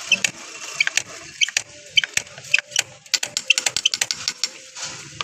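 Irregular sharp metallic clicks and taps of hand tools working on metal parts, coming thicker and faster in the second half.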